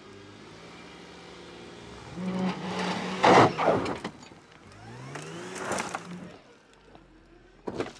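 Holden Adventra's 3.6-litre V6 revving hard in two surges, about two and five seconds in, as its tyres spin and scrabble on loose dirt and gravel climbing a rutted hump, with loud crunching bursts of flung stones around three to four seconds. The driver is feeding throttle against the traction control, which brakes the wheel that is off the ground.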